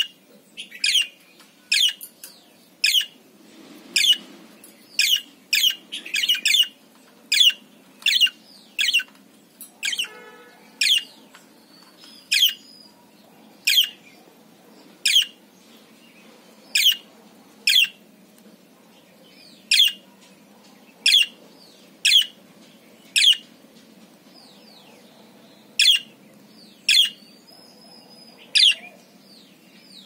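Parakeet chirping: loud, short, sharp calls that sweep down in pitch, roughly one every second with a few longer gaps, and one brief buzzy call about ten seconds in.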